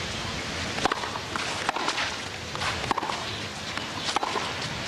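Tennis serve and rally: four sharp racket strikes on the ball, roughly one every second and a quarter, over a steady hiss.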